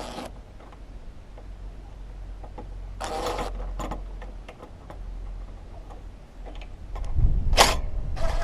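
Tools working on a mower carburettor's mounting bolts: scattered small metal clicks, a short grinding burst about three seconds in, and a louder metallic clatter near the end as a bolt comes free.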